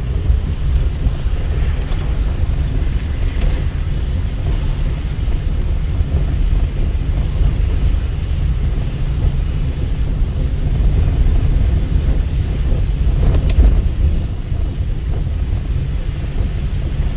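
Wind buffeting the microphone over the steady low rumble of a moving vehicle, with a sharp click about three seconds in and another about ten seconds later.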